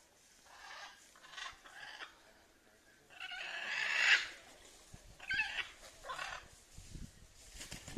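Blue-and-yellow macaws squawking: a series of short harsh calls, the loudest a drawn-out squawk lasting about a second, some three to four seconds in.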